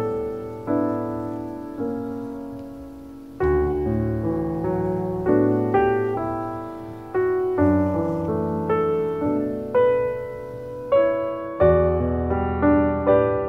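Slow piano music: chords and melody notes struck one after another and left to fade, a new note about every second.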